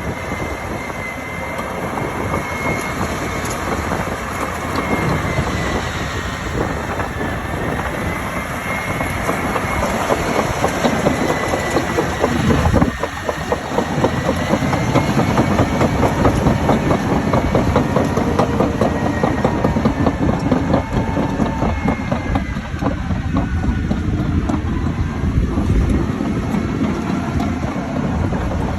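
Large crawler bulldozer working: its diesel engine runs under load while the steel tracks clatter continuously, with a thin high whine that wavers in pitch over the top.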